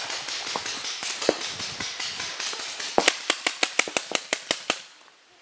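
Paintball marker fire. About three seconds in comes a fast string of a dozen or so sharp shots, around eight a second, which stops abruptly. Before it there is fainter, denser crackling.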